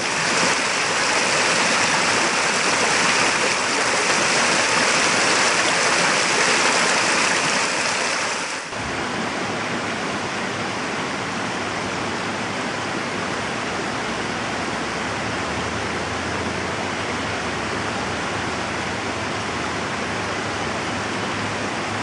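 Steady rush of water flowing over a spillway and down a shallow stream. About nine seconds in the sound changes abruptly to a slightly softer, steady flow.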